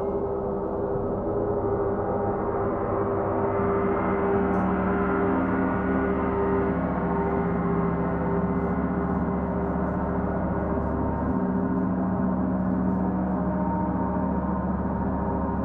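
Large gongs played with a soft mallet, ringing in a continuous wash of many overlapping tones. The mix of pitches shifts slowly while the level stays even.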